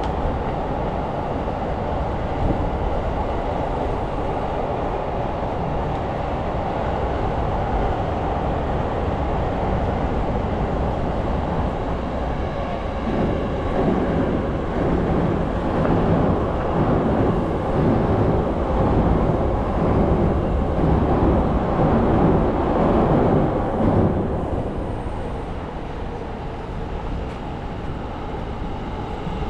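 Steady city traffic rumble heard while walking. From about 13 to 24 seconds in, a louder passing rumble with an uneven, repeated beat rises and then fades.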